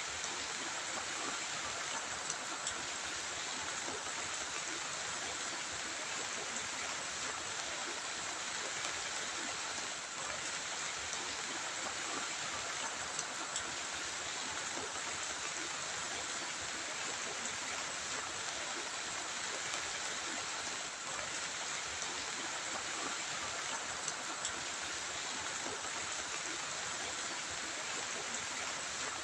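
Heavy rain falling steadily, an even hiss that holds without let-up.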